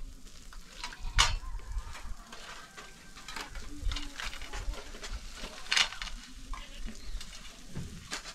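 A steady hiss with irregular knocks and scrapes, the loudest about a second in and again near six seconds.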